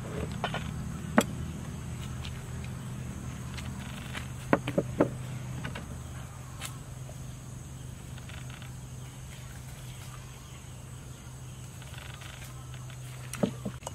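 A few sharp taps and clicks of small bowls and a spoon against a stainless-steel mixing bowl while seasonings are tipped in: one about a second in, three close together around the middle, one near the end. A steady low hum and a thin high whine run underneath.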